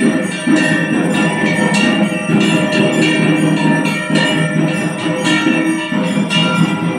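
Devotional music with bells struck in a steady beat.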